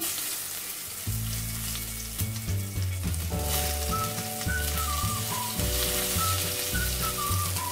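Courgette pieces sizzling as they are laid into hot olive oil in a frying pan: a steady frying hiss. Background music with sustained bass notes plays underneath, and a melody comes in about three seconds in.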